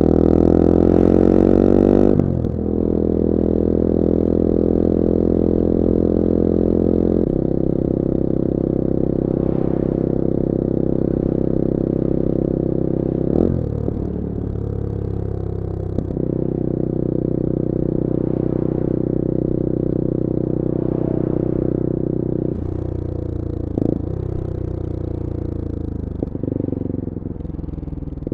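Bullit Hero 250's CF Moto 250cc four-stroke engine under way: the engine note rises for about two seconds, drops suddenly at a gear change, then runs steadily at road speed. Further brief dips and changes in pitch come near the middle and in the last few seconds.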